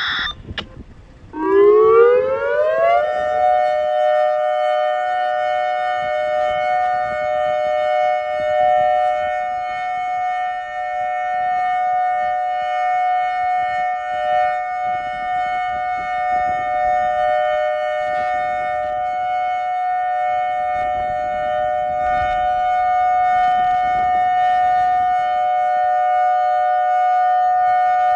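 Federal Signal Thundermod 4016 electronic warning siren starting its alert signal. Its pitch rises for about two seconds, then holds a loud steady tone.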